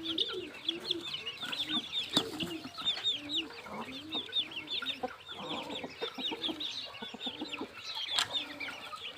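A flock of chickens feeding, clucking low with many overlapping high cheeping calls, and a sharp knock twice.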